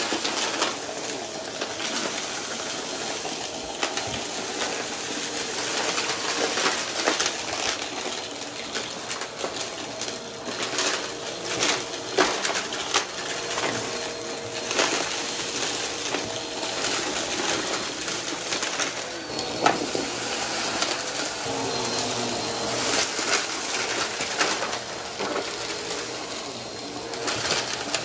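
Upright vacuum cleaner running over a rug, its floor head sucking up glitter, sequins and grit that crackle and rattle up through it in many sharp little clicks.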